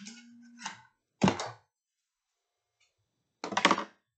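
Plastic tube of cream being squeezed out by gloved hands: two short crackling bursts about two seconds apart, with a faint steady low tone at the start.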